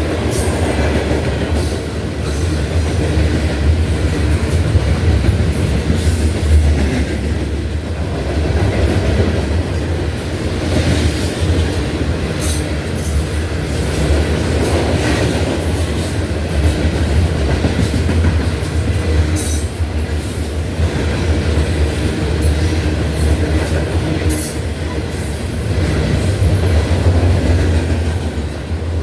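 Norfolk Southern freight train rolling past close by: a steady heavy low rumble, with scattered clicks of wheels over the rail joints and occasional brief wheel squeal.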